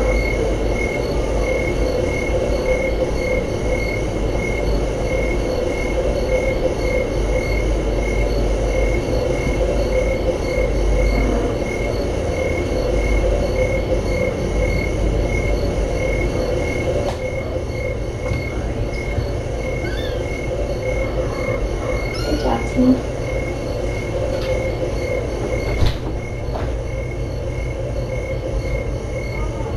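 Steady room drone of hum and hiss, with a faint tone that pulses evenly all through. In the second half come a few faint clicks and short rising chirps.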